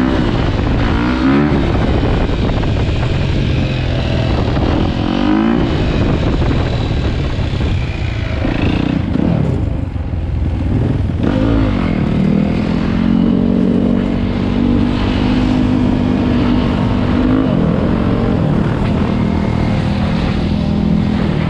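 Dirt bike engine under way, climbing in pitch and dropping back several times as it shifts gears, then holding a steady pitch for most of the second half. A broad rushing noise, like wind over the microphone, runs underneath.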